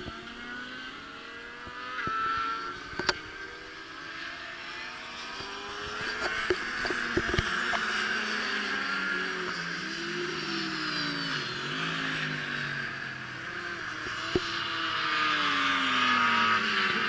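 Racing motorcycle engines on the track, their pitch rising and falling with acceleration, gear changes and passes, and growing louder near the end as more bikes approach. A few sharp clicks sound over them.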